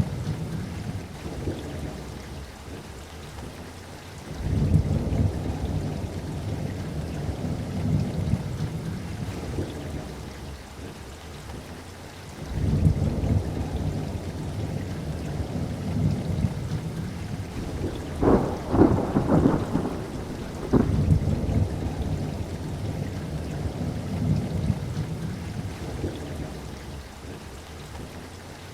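Steady rain with rolling thunder. Low rumbles break in suddenly a few seconds in and again near the middle and slowly die away, and a run of sharper, closer claps comes about two-thirds through.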